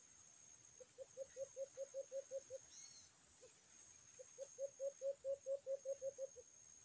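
A dove calling in two runs of rapid low hoots, about five or six a second, with a single hoot between them, over a steady high-pitched insect drone; a short falling bird chirp sounds about three seconds in.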